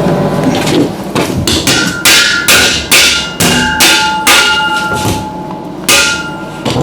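Hammer blows on metal, about a dozen irregular strikes at roughly two a second, many leaving a short ringing note, as in hammering out a steel door frame during bodywork.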